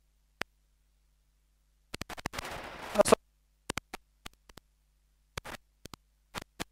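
Marker pen writing on a whiteboard: scattered short clicks and taps as the tip meets the board, with a longer scratchy stretch about two to three seconds in.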